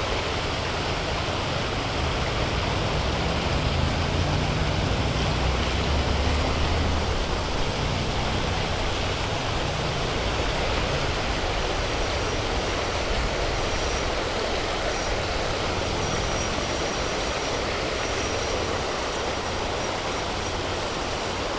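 Steady rushing of river current, an even noise with no breaks.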